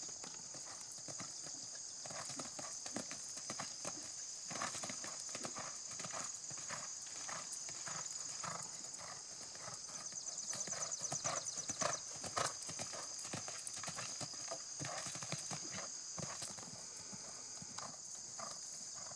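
Hoofbeats of a horse cantering on arena sand, a quick rhythmic drumming that grows louder about ten seconds in as the horse passes closest. A steady high-pitched hum runs underneath.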